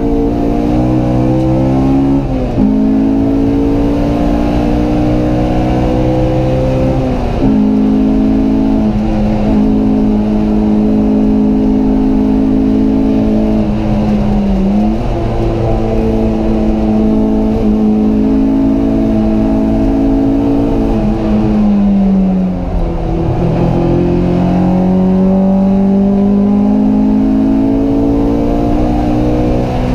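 Honda Civic Type-R engine at high revs on track, heard from inside the cabin. The note holds steady in long pulls, broken by quick gear changes. Twice the pitch sags as the car slows, then it climbs steadily again towards the end.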